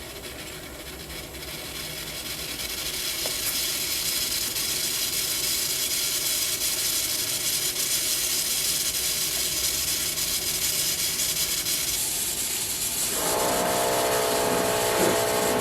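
Steady hiss of spraying water, building over the first few seconds. A steady motor-like hum with several even tones joins it about two-thirds of the way through.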